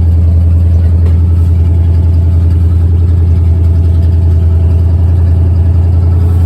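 Pickup truck engine running steadily through headers and Dynomax Race Bullet mufflers, a loud, even, deep exhaust drone.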